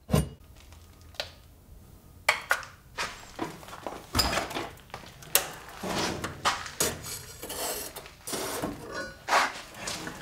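Steel tongs and a knife blade clanking and scraping against metal and kiln brick as the blade is loaded into a heat-treating kiln: irregular sharp knocks, the loudest right at the start, with busier rattling and scraping in the second half.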